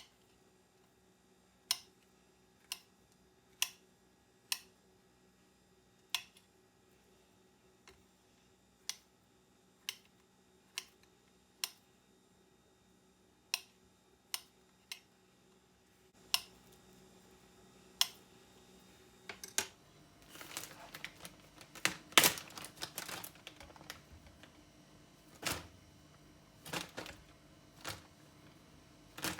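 Sharp clicks and knocks of kitchen utensils and tableware being handled, about one a second at first. About twenty seconds in comes a busy cluster of clatter, the loudest part, followed by a few scattered knocks.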